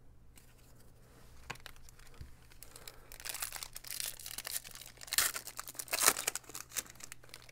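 Plastic trading-card pack wrapper crinkling and tearing as a pack is opened. A run of quick crackles grows louder from about three seconds in, with the loudest bursts near the end.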